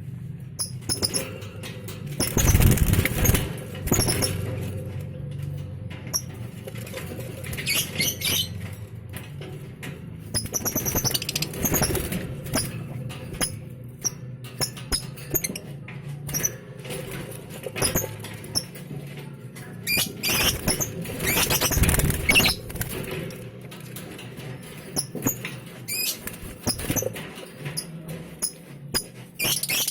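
Lovebirds moving about in a cage: scratching, rustling and wing flutters, with bursts of short high chirps several times, over a steady low hum.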